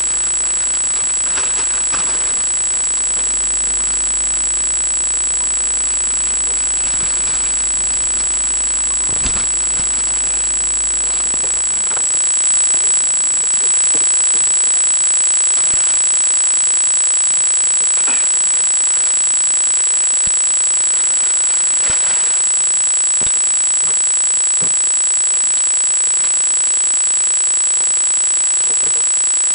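A steady, high-pitched electronic whine, with faint scattered knocks and rustles of a cardboard box and tripod being handled beneath it.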